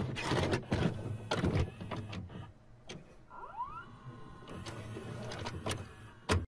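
VCR tape mechanism starting up: a series of mechanical clunks and clicks, a short rising motor whine about three and a half seconds in, and a last sharp clunk just before it cuts off.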